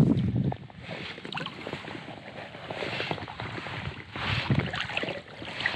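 Water sloshing and splashing around an inflatable float tube, with low gusts of wind buffeting the microphone. The loudest buffet comes right at the start.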